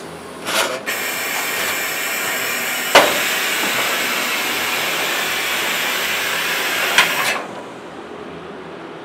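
Pneumatic vacuum suction cups on a slipsheet dispenser: a short puff of air, then a steady air hiss while the cups hold and carry a cardboard slipsheet, with a sharp clack about three seconds in and another about seven seconds in. The hiss cuts off suddenly about seven and a half seconds in, as the sheet is released.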